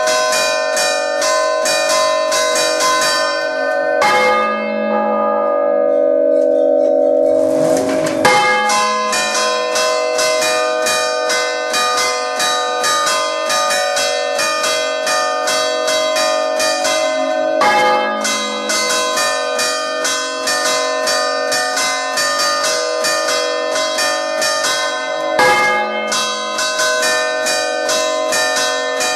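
Three swinging church bells (tuned G#3, C4 and D#4) ringing the Umbrian rinterzo, heard from inside the bell chamber. The big bell is held mouth-up while the smaller bells are chimed in a rapid, dense run of clanging strikes over a steady ringing hum. The strikes thin out for a few seconds early on, then resume.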